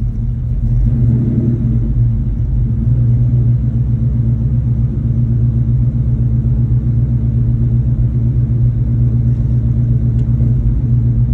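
2002 Ford Mustang GT's 4.6-litre V8 idling steadily with a deep, slightly uneven rumble, which the owner calls a rough idle.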